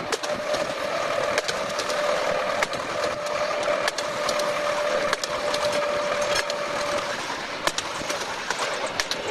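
Electric tram running along narrow-gauge track: steady rumble of the running gear with irregular clicks from the wheels on the rails, and a steady whine that stops about seven seconds in.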